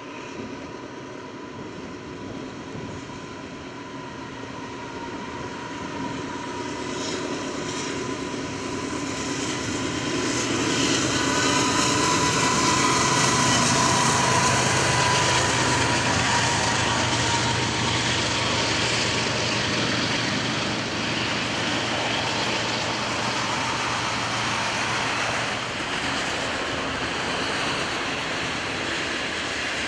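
Canadian Pacific diesel freight locomotive approaching and passing, its engine sound building to a peak about halfway through. A long string of autorack cars follows, rolling past with a steady rumble of wheels on rail.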